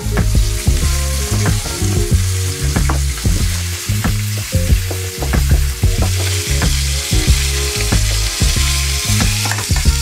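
Food sizzling in a frying pan, a steady hiss that sets in suddenly at the start, alongside background music with a deep bass line and a steady beat.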